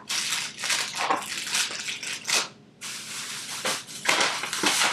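Plastic takeout bag crinkling and rustling in irregular bursts as hands rummage through it.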